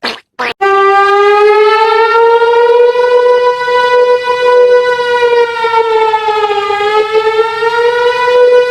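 Siren tone of an emergency alert (EAS) alarm, loud and steady with many overtones. It climbs slowly in pitch, sags about six seconds in, and climbs back. A few short choppy sounds come just before it starts, within the first second.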